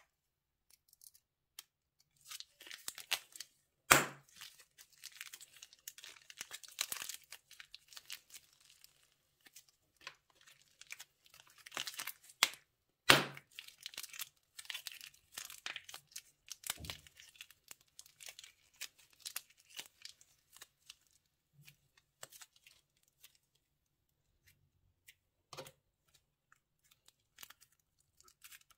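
Plastic bags crinkling and tearing by hand in irregular bursts, with two sharp snaps, one a few seconds in and one near the middle.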